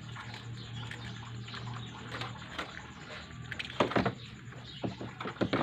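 Water running, with a few sharp knocks of parts being handled about four seconds in and near the end.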